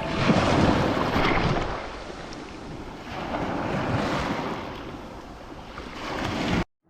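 Sea waves and wind: a rushing noise that swells and eases twice, then cuts off abruptly near the end.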